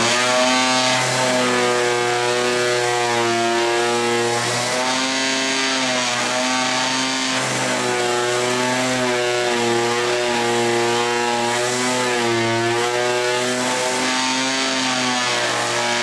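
Festool RS2E half-sheet orbital sander running on the outside of a wooden drawer. It makes a steady motor hum whose pitch wavers slightly.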